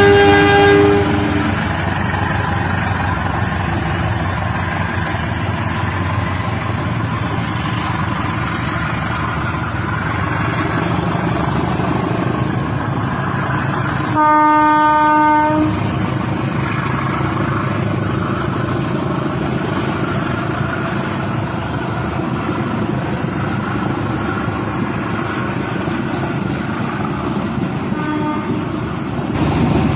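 A Rail King battery-powered toy train running along its track with a steady rattling hum. A horn tone fades out about a second in, and the horn sounds again, once for about a second and a half, around the middle.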